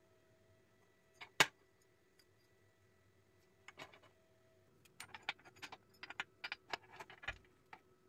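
Small metal parts clinking as a copper cable ring lug and a threaded steel bolt are handled against each other on a steel plate. There is one sharp clink about a second and a half in, a couple near the middle, then a quick run of clinks and taps near the end.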